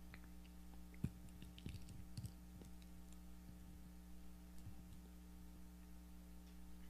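Faint clicks and crinkles of hands opening and handling a small communion packet close to a handheld microphone, loudest about a second in, over a steady low electrical hum.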